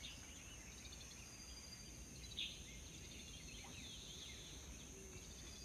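Faint outdoor ambience of small birds chirping and trilling now and then, with one brief louder call about two and a half seconds in, over a steady high insect hum.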